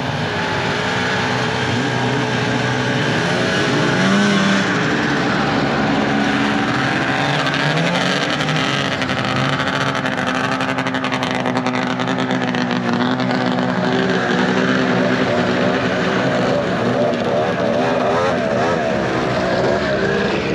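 Vintage two-stroke snowmobile engines running and revving as the sleds pull away, their pitch rising and falling throughout.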